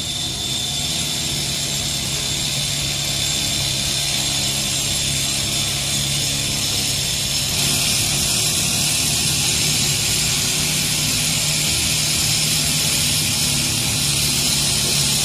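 Train passing over a level crossing: a steady running drone with high wheel-on-rail whine and hiss, the rail noise growing louder about halfway through.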